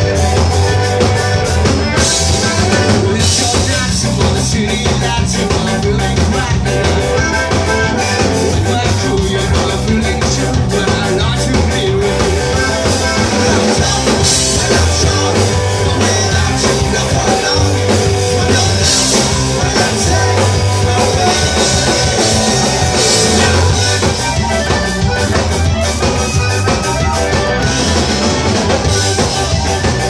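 Live Tejano punk band playing loud and fast: accordion over distorted electric guitar, electric bass and a driving drum-kit beat, with a man singing into the microphone.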